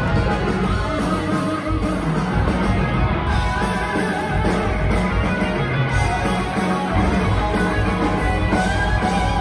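A loud live rock band playing an instrumental passage with electric guitars and drums, heard from the crowd in a large hall.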